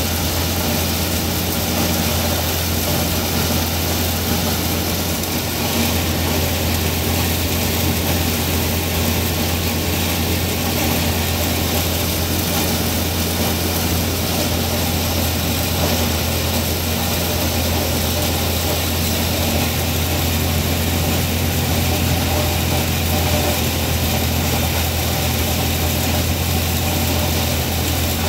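Feed grinder grinding whole ear corn, cobs and all, running steadily at full load with a constant low hum and no change in pace.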